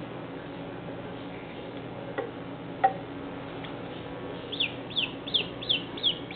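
Duckling peeping: a run of six short, falling peeps, about three a second, starting about halfway through. Before them come two sharp clicks a little over two seconds in.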